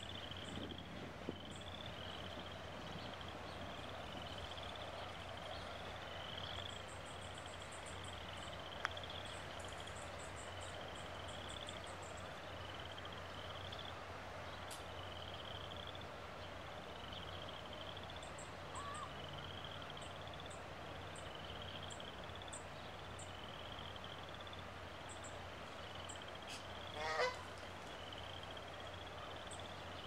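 A Canada goose honks once, briefly, near the end. Beneath it runs a steady high chirping, repeating about once a second, with faint high ticking.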